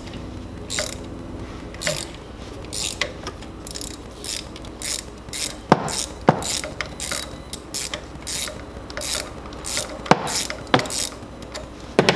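Ratchet wrench clicking in repeated short strokes, about two a second, as it runs a spark plug down into the engine, with a few louder sharp metal knocks along the way.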